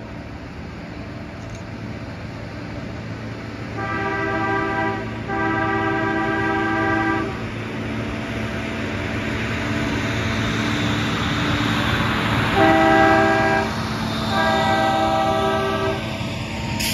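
Rail track maintenance machine running along the track and passing close by, its chord horn sounding two long blasts, a short one and a long one: the grade crossing warning signal.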